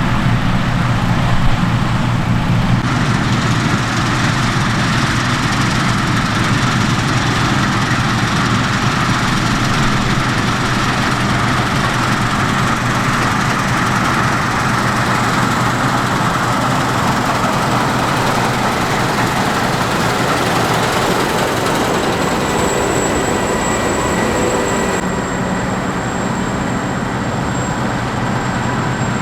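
Heavy diesel farm machinery running steadily at work in a grain harvest. The sound changes abruptly twice, about three seconds in and near the end.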